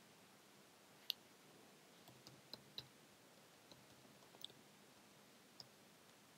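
Faint, scattered clicks of a computer keyboard as text is typed, the sharpest about a second in, over near silence.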